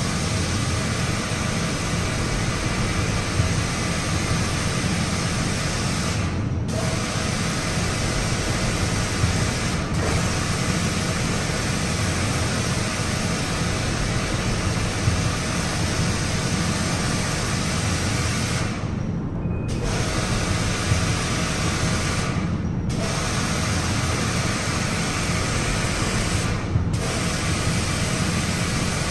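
Pressure washer spraying a jet of water to rinse foam off a car, with the pump motor running underneath. The spray cuts out briefly about five times as the trigger is let go, while the motor keeps running.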